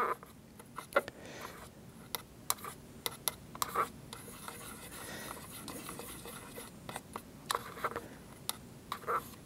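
Small paintbrush stirring and dabbing paint in a plastic palette well: soft scratching and rubbing, with scattered light ticks as the brush knocks against the plastic.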